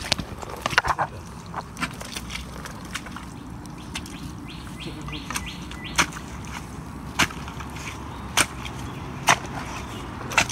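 Rubber boots stepping through soft mangrove mud: a sharp sucking pop about once a second as each boot pulls free, over low rustling. A few short high bird chirps come a little before the middle.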